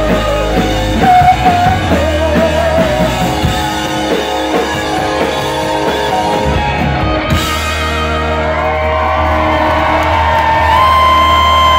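Live rock band with singing over drums and electric guitars. About halfway through, the drum hits stop and the band holds long ringing chords, winding the song down.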